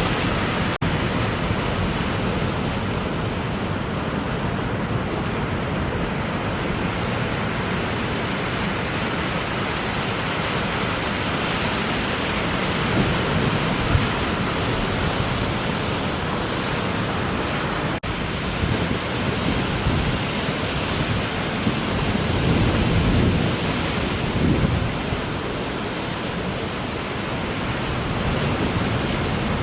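Ocean surf breaking and washing, mixed with wind buffeting the camera microphone in a steady roar of noise. The sound cuts out for an instant twice, about a second in and again about 18 seconds in.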